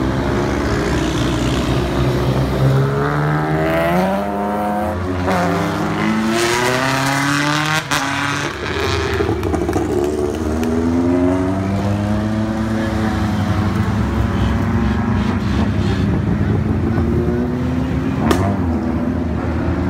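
Rally car engines revving up and down as the cars take a hairpin one after another, several engines overlapping with their pitch rising and falling. Two sharp cracks cut through, one about midway and one near the end.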